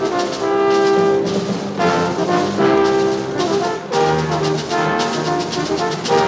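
Orchestral music led by brass, playing sustained chords that shift every second or so.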